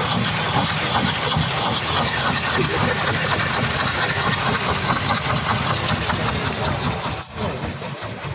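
Ground fireworks going off in a rapid, continuous crackle, which drops away about seven seconds in.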